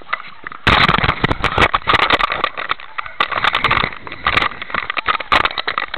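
Loud, dense crackling and scraping of something wet rubbing directly against a small action camera and its microphone. It starts suddenly about a second in.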